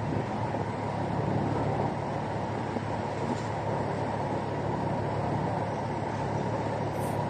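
A moored ship's engines running steadily: a constant low hum under a dense rushing noise.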